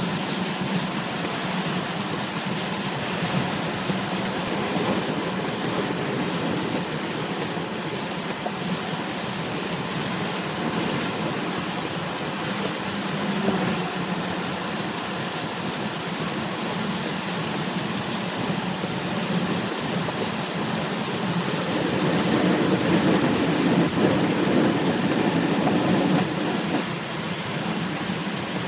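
Heavy rain on a car driving on a wet highway, heard from inside the cabin: a steady wash of rain and tyre spray over the road and engine noise, swelling for a few seconds near the end.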